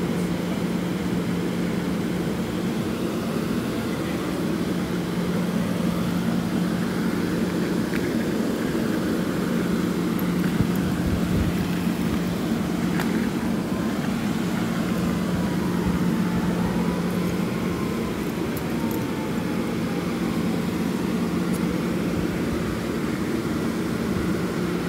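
Amtrak passenger train standing at the platform, idling with a steady low hum.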